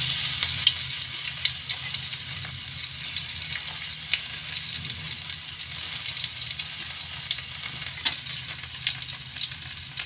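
Freshly ground chili, shallot and garlic spice paste sizzling and crackling in hot oil in an aluminium wok, stirred with a wooden spatula. The sizzle is loudest at the start and eases a little.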